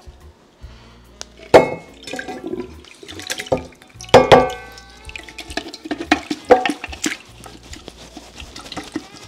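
Stew poured from a clay tangia pot into an enamelled cast-iron pan: sauce gushing and splashing as chunks of meat slide and drop in. Two loud ringing clunks against the pan come about a second and a half and four seconds in, with smaller knocks between.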